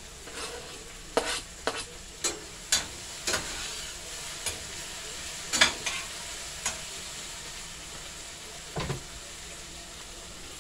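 Chopped onion, peppers, tomato and garlic sizzling steadily in hot oil in a stainless steel pan, with a spoon knocking and scraping against the pan about ten times at uneven intervals as the vegetables are stirred. The loudest knock comes a little past halfway.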